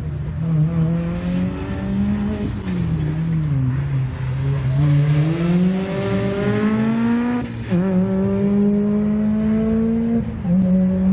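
Racing car engine driven hard on a slalom course. Its pitch climbs and falls with the throttle, and drops abruptly at gear changes about two thirds of the way in and again near the end.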